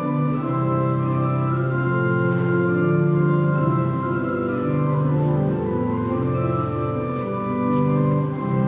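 Church organ playing slow, sustained chords that change every second or so over a held bass line.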